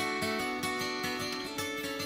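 Background music with a quick, even pulse of short notes, about five a second.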